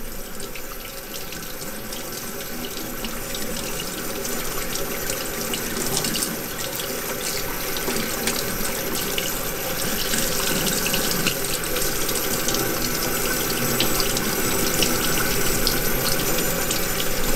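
Tap water running steadily onto a gloved hand and splashing into a stainless steel sink, slowly getting a little louder.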